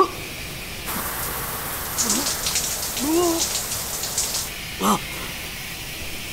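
Shower spray hissing for a few seconds, with a couple of short moans over it. Near the end a man gags once as he vomits into a toilet.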